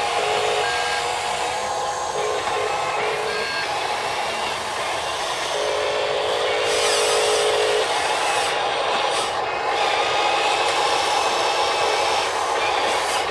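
Huina 580 radio-controlled excavator's electric motors whining in steady spells that start and stop as the arm moves and the upper body swings round, over a constant hiss.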